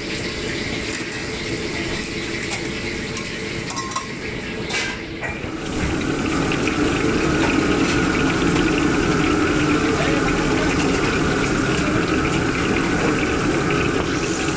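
Steady rushing, hissing noise at a commercial wok station, with hot oil bubbling in a wok; it grows louder about six seconds in.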